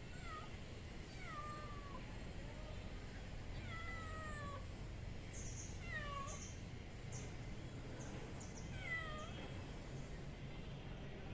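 A kitten meowing five times, each meow falling in pitch; the third is the longest.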